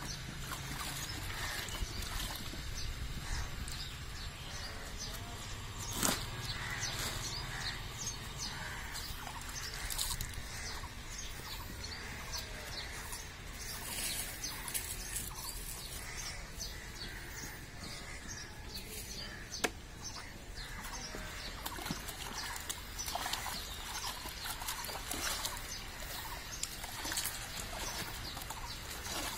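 Outdoor ambience: a steady background hiss with scattered short chirps and clicks throughout, and a sharper knock about six seconds in.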